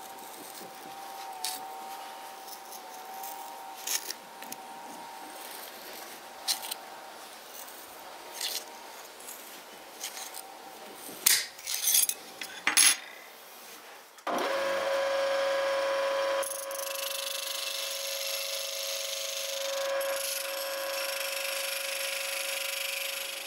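Rusty old tin snips cutting a thin metal strip, with a few sharp snips about eleven to thirteen seconds in. Then a bench grinder starts abruptly and runs with a steady whine, and the strip's edge grinding against the wheel adds a hissing rasp.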